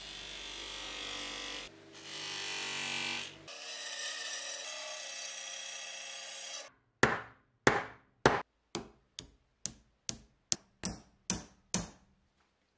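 Workshop power tools running in short edited clips: a bench buffing wheel working a small metal part, then a machine working the wooden hammer handle, with two abrupt cuts. These are followed by a quick run of about fourteen sharp knocks about a third of a second apart, the first three loudest.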